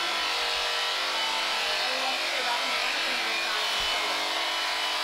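Electric sheep shears running with a steady hum as they clip through a sheep's fleece.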